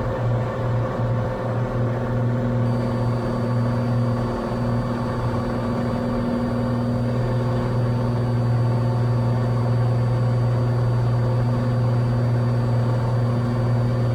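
Cessna 182's six-cylinder piston engine and propeller running steadily at climb power just after takeoff, a constant deep drone.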